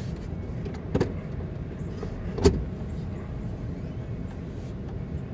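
Car running on a debris-strewn street, heard from inside the cabin as a steady low road and engine rumble. Two sharp knocks about a second and a half apart, the second louder.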